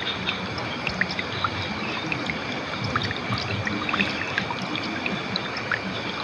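River water flowing steadily over rocks, an even rush with many small, sharp splashes and gurgles scattered through it.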